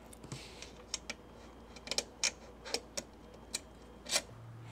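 Irregular metallic clicks and ticks of a long Allen wrench being fitted into and turned in a screw on a 3D printer's aluminium extrusion frame.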